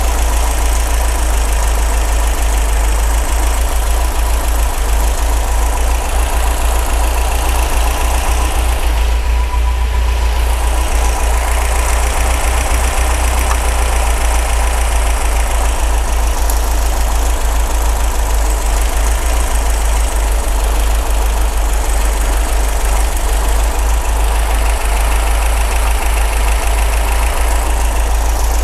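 An MGB's 1.8-litre B-series four-cylinder engine idling steadily with its air cleaners off, its twin SU carburettors just set for mixture and balance so that both sound the same.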